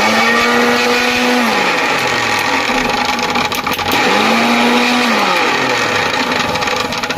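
Mixer grinder motor running with its jar freshly fitted with a new bush and washers. It is pulsed twice: each time it holds a steady whine, then winds down, the second burst starting about four seconds in. It runs with far less of its old noise.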